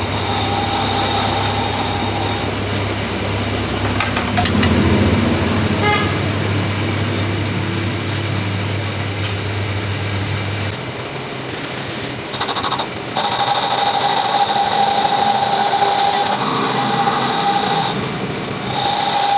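Workshop machinery running steadily, with a high whine over a low hum. The whine drops out about 2 seconds in and comes back about two-thirds of the way through; the hum stops a little past halfway.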